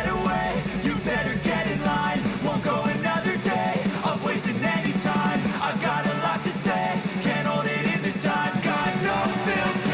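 Upbeat rock-style background music with guitar and a steady beat, perhaps with singing.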